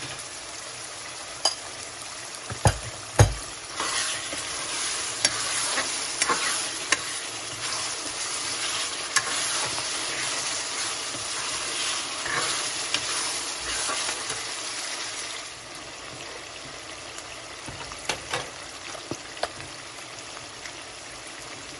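Onion-tomato masala with zucchini pieces sizzling in a stainless-steel kadai while a steel ladle stirs and scrapes through it, with a few sharp clacks of the ladle on the pan in the first few seconds. The stirring stops about two-thirds of the way through, leaving a quieter, steady sizzle with a few light taps near the end.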